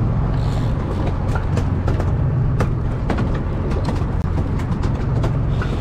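Boat engine running steadily with a constant low hum, with scattered short clicks and knocks over it.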